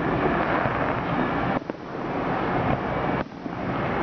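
Fireworks display bursting overhead: a dense, continuous rumble and crackle that drops away suddenly twice, about a second and a half in and again near three seconds, then swells back.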